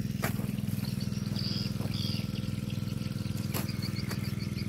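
An engine running steadily with a low, even hum. In the second half, quick high chirps repeat several times a second, and there are a couple of short clicks.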